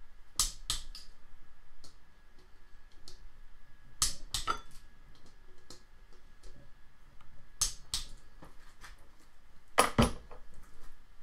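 Click-type torque wrench clicking as the cam chain tensioner's Torx bolts are brought to 10 N·m on an aluminium cylinder head: four pairs of sharp clicks a few seconds apart, with light tool ticks between.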